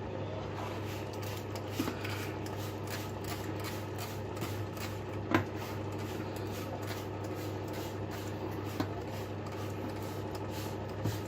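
Hand spray bottle being pumped to mist water onto a vacuum cleaner dust bag, with faint short ticks and a few sharper clicks over a steady low hum.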